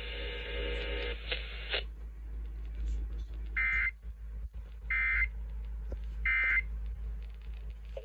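Emergency Alert System end-of-message signal from a radio: three short digital data bursts about a second and a half apart, marking the end of the warning. A steady buzz from the radio comes before them and stops about two seconds in.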